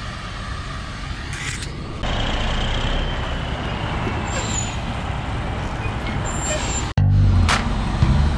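Heavy diesel trucks and a mobile crane running, in three cuts: a steady engine rumble, a louder, noisier stretch from about two seconds in, and from about seven seconds the crane's engine running loud as it hoists a precast concrete box culvert section.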